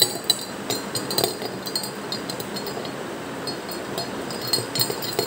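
Metal spoon clinking against the inside of a glass tumbler while stirring sugar into water to dissolve it, in quick irregular taps that thin out in the middle and pick up again near the end.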